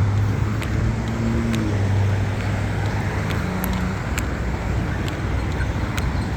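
Road traffic at an intersection: car engines running and tyres on the road. Over it, a short tick repeats about once a second, typical of a Polara accessible pedestrian signal push button's locator tone.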